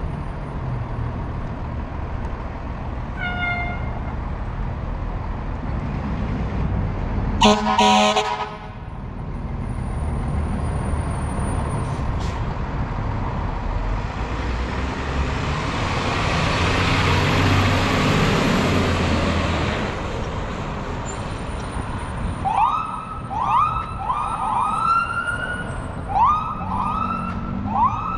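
Fire engine's diesel running as it pulls out, with a short beep and then a single air horn blast about a second long. Engine noise swells as it pulls away. Near the end its electronic siren gives a string of quick rising chirps, then winds up into a rising wail.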